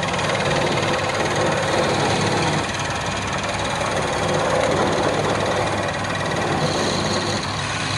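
Wood lathe running steadily, the spinning wooden spindle's end rubbing hard against a wooden post with a continuous grinding friction noise over the drive's low hum; the friction is hard enough to make the wood smoke.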